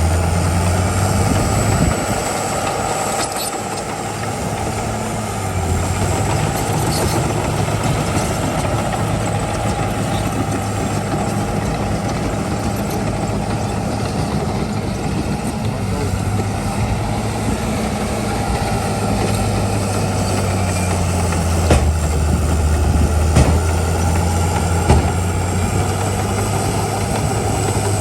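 Heavy diesel earthmoving machinery running steadily, its low engine note easing off briefly a couple of times, with a few sharp knocks near the end.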